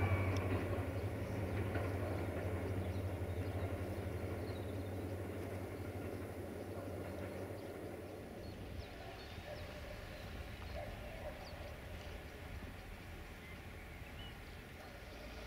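Diesel-hauled passenger train moving away, its low engine drone and rumble fading out over the first several seconds, leaving only faint outdoor ambience.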